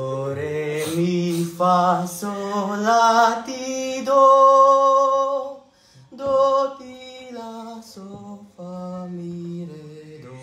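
A man singing unaccompanied, holding long sustained notes as in vocal practice, with a short break about six seconds in.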